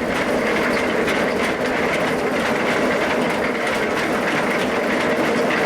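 Carrot washing machine running: a steady mechanical noise with many small, irregular knocks.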